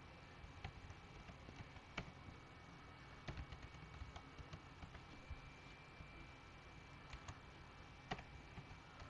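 Faint computer keyboard key clicks, irregular and spaced apart, as code is typed, over a low steady background hiss.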